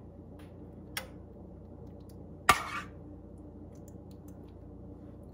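Kitchenware knocks as tomato sauce is spooned out of a metal pan: a faint tap about a second in and a sharper clack about two and a half seconds in, over low room hum.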